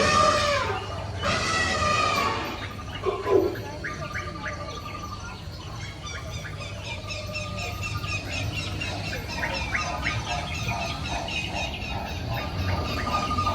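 Recorded animal calls from an animatronic animal exhibit's loudspeakers: two long pitched calls in the first couple of seconds, then a steady run of short, repeated bird-like chirps and clicks.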